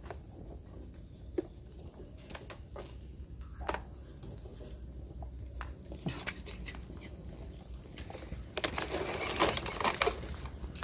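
Bundles of burning wooden matchsticks crackling, with scattered sharp pops. About eight and a half seconds in, a denser burst of crackling lasts about a second and a half as the fire spreads into more bundles of matches.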